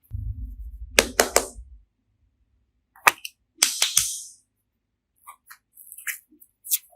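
A low rumble for the first two seconds, with a quick run of sharp pops and cracks about a second in, then two more cracks and a short hissy burst around the middle, and light scattered clicks near the end.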